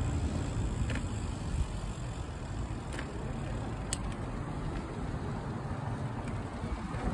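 Low, uneven outdoor street rumble with wind on the microphone as the phone moves along, and a few light clicks.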